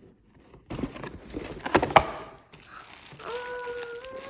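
Cardboard packaging being pried and torn open by hand: crackling and rustling, with a sharp snap about two seconds in.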